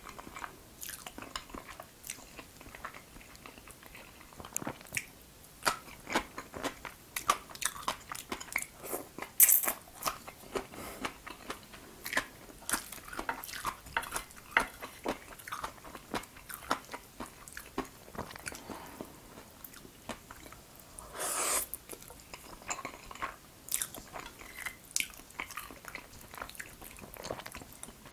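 Close-miked eating of jajangmyeon, wheat noodles in black bean sauce: wet chewing with many short mouth clicks and smacks. About three-quarters of the way through comes one longer slurp of noodles.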